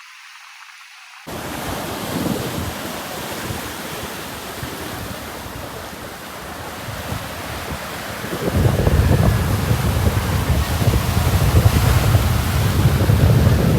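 Ocean surf washing onto a beach, with wind buffeting the microphone. The sound comes in suddenly about a second in, and the low wind rumble on the microphone grows heavy past the middle.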